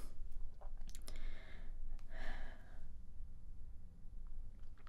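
A person's soft breath or sigh about two seconds in, with a few faint clicks about a second in and again near the end, over a low steady room hum.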